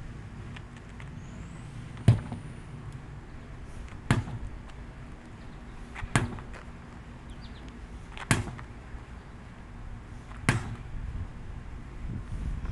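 A 20 lb sledgehammer striking a large tire, five strikes about two seconds apart, with another just at the end.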